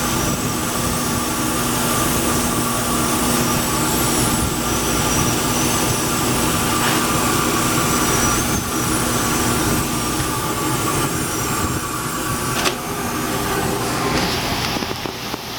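A shop power tool running steadily, a continuous mechanical whine over a broad rushing noise, with a faint click or two.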